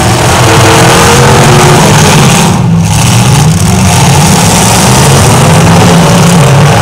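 Several demolition derby cars' engines running and revving together, loud, as a steady low rumble.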